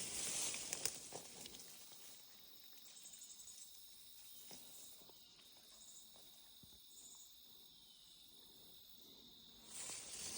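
Faint, steady high-pitched trilling of crickets. Brief rustling in the first second or so and again near the end.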